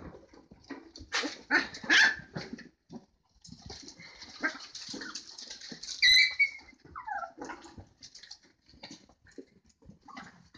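Several puppies crying out as they play, in short, high cries. The loudest come about two seconds in and about six seconds in, the second followed by a falling cry.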